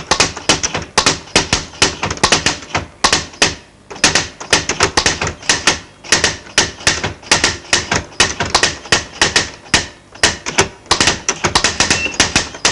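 Rapid typing on keys: irregular runs of sharp clacking keystrokes, several a second, with short pauses between runs.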